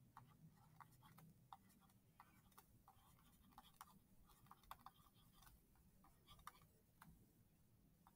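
Faint, irregular ticks and light taps of a stylus writing on a touchscreen, in near silence.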